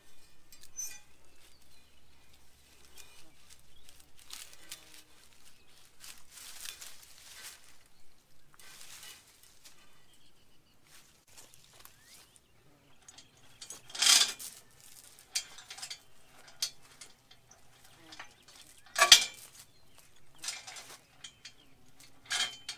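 Scattered metallic clinks and clanks of steel woven wire fence and a steel bar being handled while the fence is unhooked and the stretching bar fitted, with two sharp clanks, one about halfway through and another a few seconds later.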